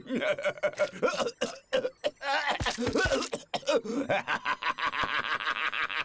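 An animated character's wordless vocal sounds: rapid giggling and snickering, with a longer wavering vocal stretch in the second half.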